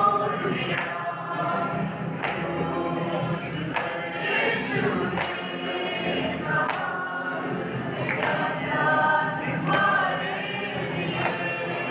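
Mixed choir of young men and women singing together, with a sharp beat marking time about every second and a half.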